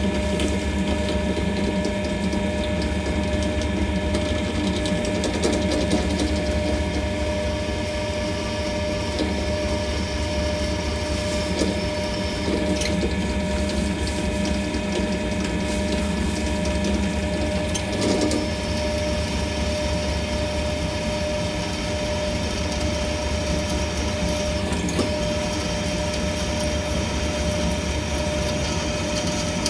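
Bench pillar drill's electric motor running at a steady speed, a constant hum with several fixed tones. A few light knocks come from the drill vise being handled, one around twelve seconds in and another around eighteen seconds in.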